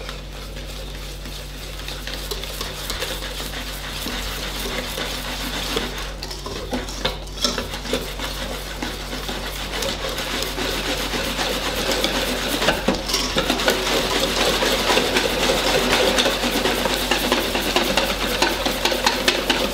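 Wire balloon whisk beating beer batter in a stainless steel bowl: a fast, continuous scraping and clinking of the wires against the metal, growing gradually louder.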